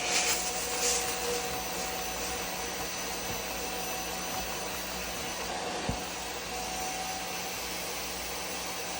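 Bissell Little Green Max Pet portable carpet cleaner's suction motor running steadily, with a couple of brief swishing strokes near the start as the tool is worked over a wet mattress stain. There is a small click about six seconds in.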